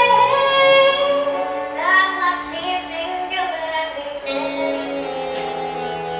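Young voices singing a stage-musical song with instrumental accompaniment; about four seconds in, the singing gives way to a held chord.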